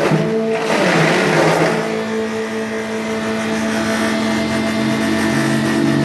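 Four-blade grinding machine running on a test run, a steady machine drone whose pitch shifts about two seconds in and again near the end.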